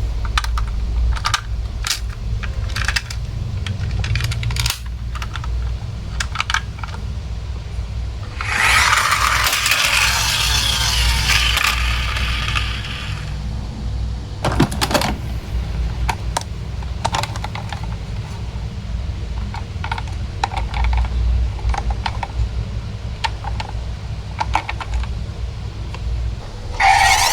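Small plastic toy vehicles and their packaging being handled: scattered light clicks and knocks throughout, with a few seconds of rustling packaging about a third of the way in.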